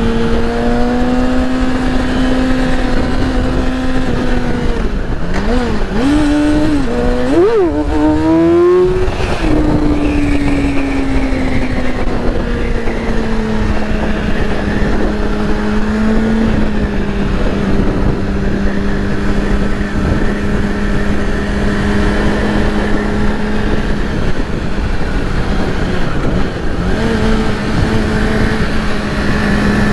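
2008 Yamaha R6's inline-four engine running under way with wind rush over the microphone. About five to nine seconds in the revs swing quickly up and down several times and climb, then the engine settles into a steady, slowly falling tone.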